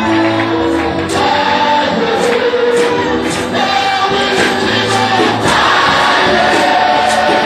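Live gospel worship music: a choir singing with a band and a steady drum beat, the music building up and getting fuller about five and a half seconds in.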